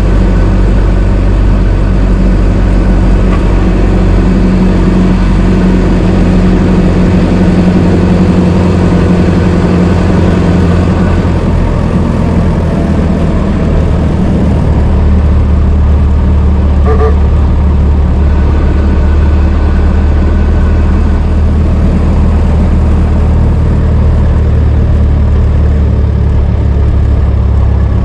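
Old car engine running steadily with a deep, even note; its pitch shifts and settles lower partway through.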